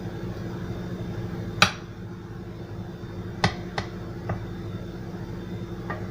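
Kitchenware clinking and knocking as food is moved from a pan onto a serving plate: one sharp knock about a second and a half in, then several lighter clicks, over a steady low hum.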